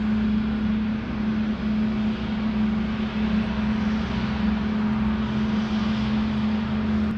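A steady mechanical drone with one constant low hum, holding at an even level throughout.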